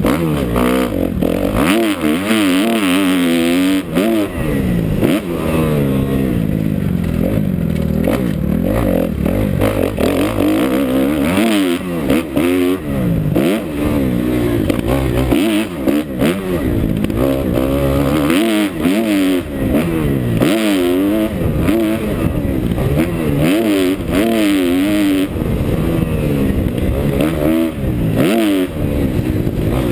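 2011 Kawasaki KX250F's single-cylinder four-stroke engine ridden hard, revving up and down again and again through the gears, heard from the rider's helmet. Occasional knocks and rattles from the bike over the bumps.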